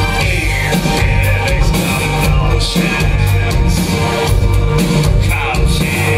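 Industrial band playing live through a concert PA: a heavy, steady drum beat and thick bass with a singer's voice coming in and out over it, loud throughout.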